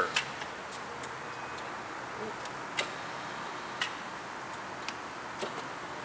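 Electric control gear of a water monitor clicking: several sharp, single clicks at uneven gaps of about a second, over a steady even hiss, as the monitor's functions are switched from its local control panel.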